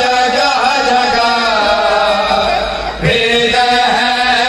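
Male voices chanting a noha, an Urdu mourning lament, in long held melodic lines; the line breaks off about three seconds in and a new phrase begins.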